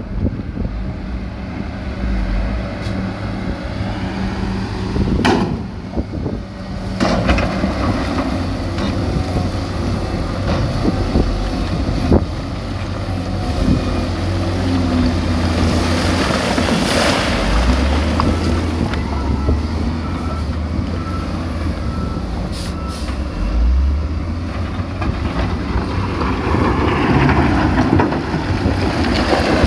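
Diesel engines of heavy dump trucks and wheel loaders running steadily, with a few sharp knocks and a brief hiss about halfway through.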